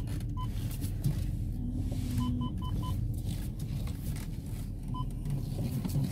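BMW engine idling warm, heard as a steady low rumble inside the cabin. Short electronic beeps at one high pitch come over it: one at the start, another just after, a quick run of four about two seconds in, and one more about five seconds in.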